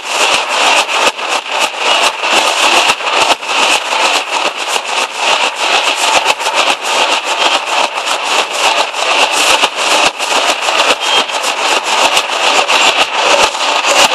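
Nashik dhol troupe drumming: many large dhol drums and smaller high-pitched drums beaten hard in a fast, unbroken rhythm.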